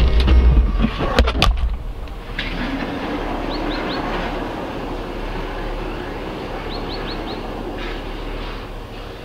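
Low rumble of a car driving, heard from inside the cabin, with a few sharp clicks; after a cut about two seconds in, a steady outdoor rumble and hiss with two brief bursts of small bird chirps.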